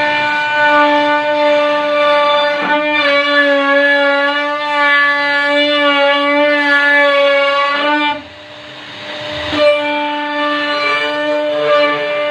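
CNC router's spindle running with a steady whine and a stack of even overtones while carving a wooden door. The pitch shifts slightly about three seconds in and again about eight seconds in, and the level briefly drops with a rougher hiss before the whine returns.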